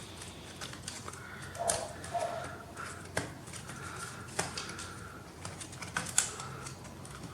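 Scattered light clicks and taps of small parts being handled inside an opened laptop while an SSD is seated in its drive bay, a few sharper clicks standing out.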